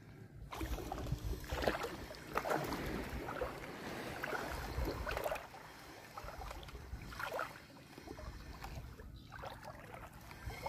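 Shallow seawater sloshing and splashing in irregular swishes, strongest over the first five seconds, with a low rumble underneath.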